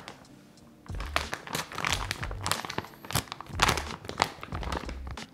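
Plastic kimchi bag crinkling and crackling as it is squeezed and handled to work the kimchi juice out. The crackling is irregular and starts about a second in.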